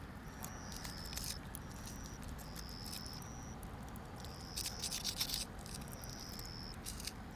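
Repeated short, high-pitched chirping calls, each held about half a second, over a faint background hiss. A brief flurry of clicks comes about four and a half seconds in.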